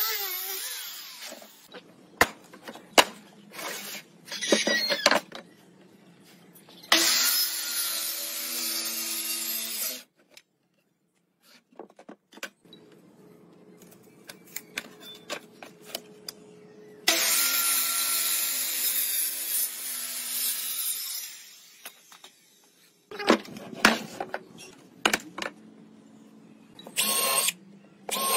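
Power tools working pine boards. A cordless drill with a sanding pad winds down, then a motor runs in two bursts of about three seconds each, with wooden knocks and clicks between them. A drill whirs briefly near the end.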